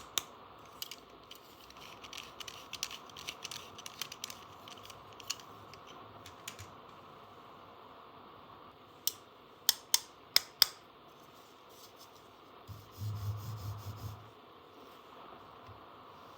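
Small plastic toy tool pieces being handled, with light clicks and rustling, then four sharp clicks in quick succession. A short low buzz comes near the end.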